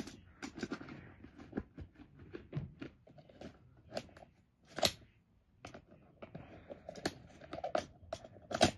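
Tools and pens being handled in the pockets of a fabric tool bag: irregular clicks, light knocks and scrapes with fabric rustling, the sharpest click about five seconds in.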